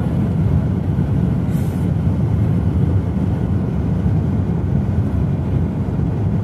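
Steady low rumble of a car travelling at speed, tyre and wind noise heard from inside the cabin.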